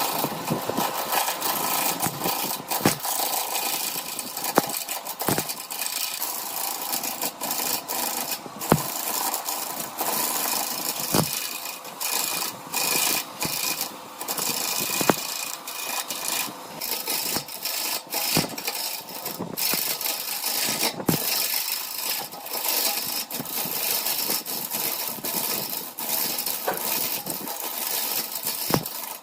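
Woodturning lathe running while a tool or abrasive works the spinning piece: a steady, gritty hiss broken by irregular clicks and sharp knocks.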